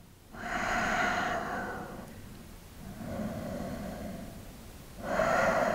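A man breathing slowly and deeply, with three long breath sounds of about two seconds each.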